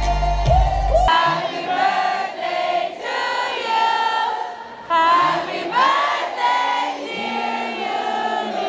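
Live concert sound. Band music with heavy bass cuts off about a second in, and voices singing in unison carry on without accompaniment, like a concert crowd singing along.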